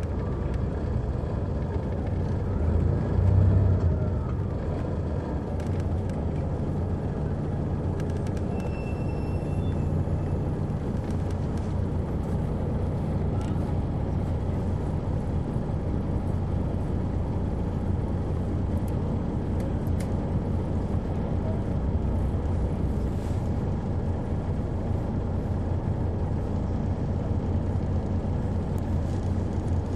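Detroit Diesel Series 60 inline-six diesel of a 2001 MCI D4000 coach heard from the rear seats inside the bus, running steadily under way with a low drone. It swells briefly in loudness about three seconds in.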